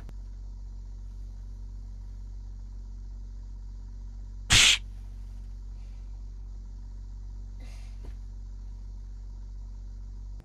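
A person sneezing once, sharp and short, about halfway through, over a steady low hum; a fainter short sound follows near the end.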